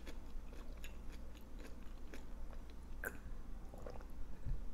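Sips and swallows of water from a plastic water bottle, heard close up as a scatter of small wet mouth clicks, the strongest about three seconds in.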